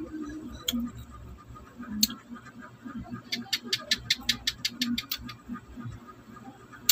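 Close-up mouth sounds of sucking the white cottony pulp off a santol seed: a few single clicks, then a quick run of about a dozen smacking clicks in the middle, about seven a second.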